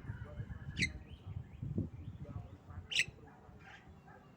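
Pet Javan myna giving two short, sharp high calls, one about a second in and one about three seconds in, over a low rumbling noise.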